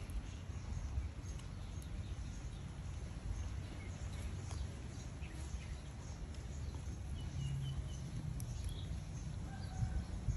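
Rural outdoor ambience: a steady low rumble with a few faint bird chirps, mostly in the second half.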